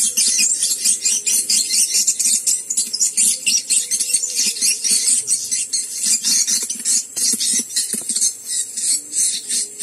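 Swiftlets calling: a dense, continuous chatter of high-pitched chirps and twitters, many overlapping, several a second.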